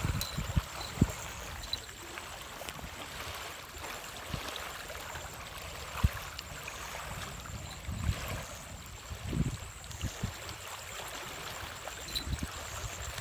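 Small waves lapping and gurgling at a pebbly lake shore, a steady wash of water, broken by several sharp low thumps of wind or handling on the microphone.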